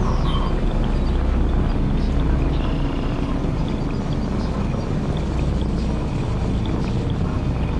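Steady low outdoor rumble, with a short descending whistle about a quarter of a second in and a few faint ticks.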